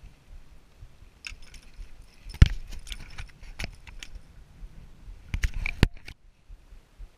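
A caught rainbow trout being handled on wooden dock boards: a run of knocks and light metallic clinks from the fish and its lure against the wood, loudest about two and a half seconds in and again just before six seconds.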